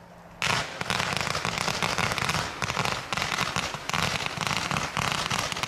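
A 280-shot, seven-branch firework cake firing very quickly from about half a second in: a dense, unbroken run of launch shots, many each second.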